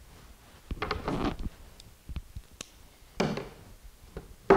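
Handling noise at a workbench: two short rustles, then a sharp knock near the end, the loudest sound.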